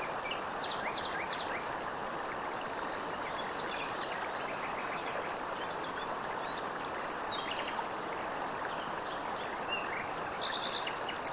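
Steady rush of running water with small birds chirping now and then: a nature ambience of a stream and birdsong.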